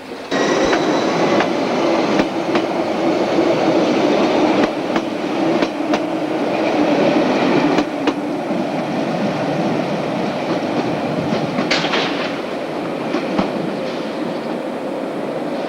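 Metre-gauge train running close by: a steady rail rumble that starts abruptly just after the beginning, with the wheels clicking sharply over rail joints now and then.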